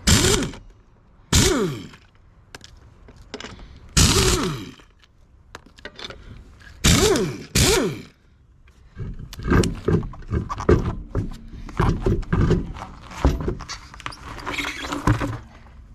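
Impact wrench running lug nuts onto a trailer wheel in several short bursts, the motor winding down in pitch after each. Later comes a longer stretch of rapid hammering as the nuts are run down.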